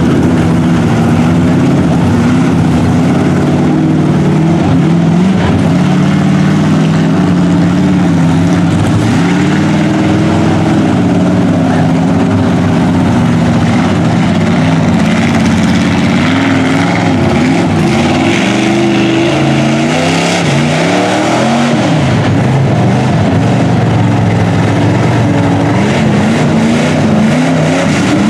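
Lifted mud truck's engine revving hard as it churns through deep mud, its pitch rising and falling again and again, over the wash of mud thrown by the tyres.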